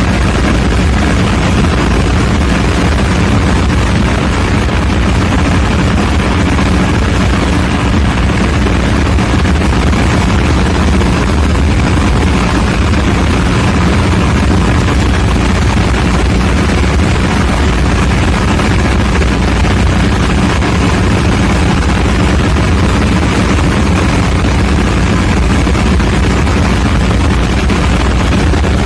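Ship's diesel generator machinery in the engine room running: a loud, steady mechanical drone that holds an even speed throughout.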